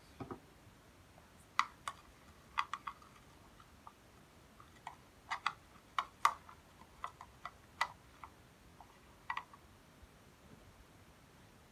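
Irregular light clicks and taps of a toothbrush against the rim of a clear container while slime is mixed, about fifteen in all. There is a duller knock just after the start.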